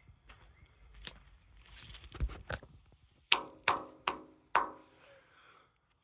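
Sharp knocks on heavy steel, each with a short metallic ring: a few single ones, then four in quick succession about three seconds in.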